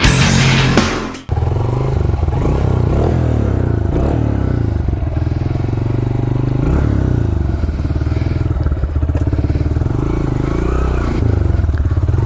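A loud rushing burst for about the first second, then a Honda CRF125F's small single-cylinder four-stroke engine running steadily under way, its pitch rising and easing a little as the throttle changes.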